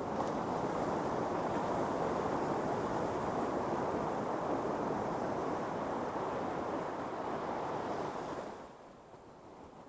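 Ocean surf breaking on a beach, a steady rushing wash of waves that drops away to a much quieter lull near the end.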